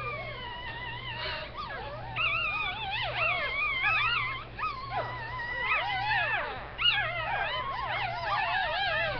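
Two-day-old Shih Tzu puppies crying in high, wavering squeals, several overlapping at once. The cries are fainter at first and nearly continuous from about two seconds in.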